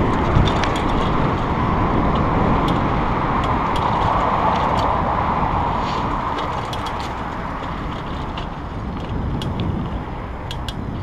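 Steady rushing noise of a bicycle riding along a dirt trail: tyres rolling on packed earth and wind across the action camera's microphone, with scattered small clicks and rattles from the bike. It eases off slightly toward the end.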